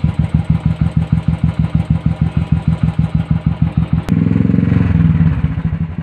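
Royal Enfield Classic 350 single-cylinder engine running, its exhaust note at the silencer beating out an even, steady thump of roughly eight to ten pulses a second; the sound is back to normal after the service. About four seconds in there is a sharp click, and the exhaust turns louder and denser.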